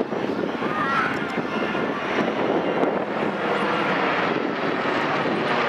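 Airplane engines of an aircraft flying past, a steady rushing drone that grows a little louder in the second half.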